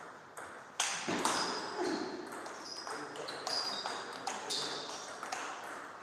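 Table tennis ball being hit back and forth in a rally: a run of sharp clicks off the rackets and the table, each with a short high ping, starting about a second in.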